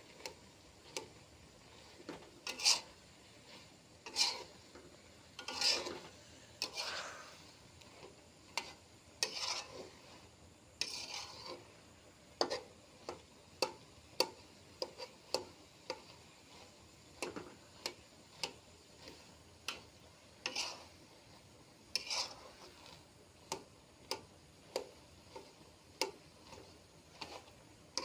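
A spatula scraping and tapping against a cooking pan as food is stirred. The strokes come irregularly, about one a second, and a few of them are longer scrapes.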